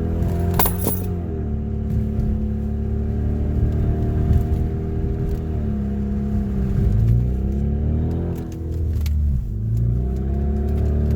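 Hyundai Veloster Turbo's engine through a muffler-deleted exhaust, under way: the revs fall about a second in, hold fairly steady, then dip again near the end and climb. A brief metallic jingle of clicks comes just under a second in.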